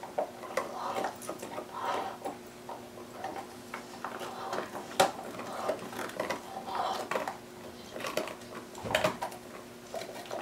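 A dog gnawing on a bone: irregular crunches, scrapes and clicks of teeth on bone, with a sharp crack about halfway through and a flurry of louder crunches near the end.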